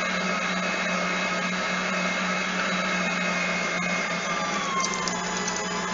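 HOUSNAT electric meat grinder's motor running steadily under load as it grinds round steak, a constant hum with a whine over it. A faint tone in the whine sags slightly in pitch about four seconds in.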